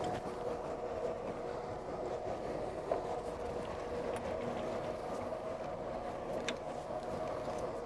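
Motor boat's engine idling with a steady low hum, and a couple of light clicks as a mooring line is worked onto the boat's cleat.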